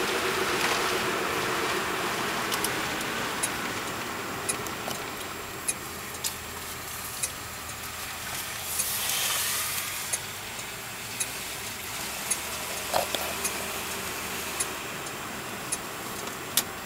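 Cabin sound of a 1962 Ford Fairlane's 200 cu in straight-six running on the road with its rebuilt cylinder head, running well, with road noise, getting quieter over the first several seconds. Sharp clicks sound about once a second.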